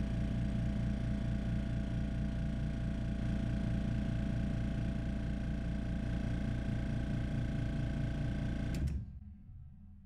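GAST air compressor's 115-volt AC motor and pump running steadily with a rhythmic low pulsing, then cutting out with a click near the end as the pressure switch opens at the 95 PSI cut-out pressure, the sound dying away.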